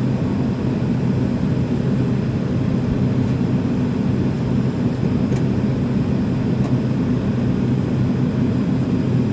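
Steady low hum with a couple of held tones inside the cabin of a McDonnell Douglas MD-80 airliner parked with its doors closed.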